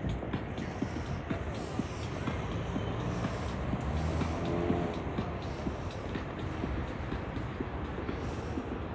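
City street ambience: a steady rumble of passing traffic with frequent light footstep clicks, and a brief pitched whine about halfway through.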